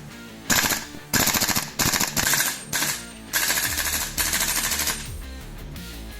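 Gas blowback M4 airsoft rifle firing on full auto in six short rapid bursts, the bolt cycling with sharp, fast clacks; the firing stops about five seconds in.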